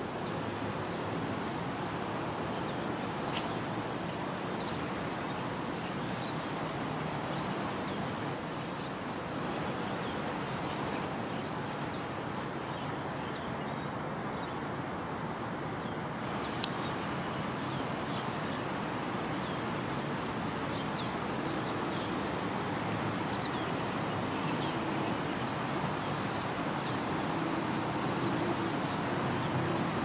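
Steady outdoor ambience: the even hum of road traffic with a high, steady insect drone over it. A single short click about halfway through.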